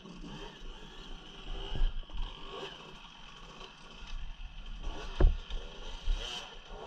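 Dirt bike working its way up a rock ledge, its motor rising and falling faintly under low wind rumble on the helmet camera, with a sharp knock about five seconds in.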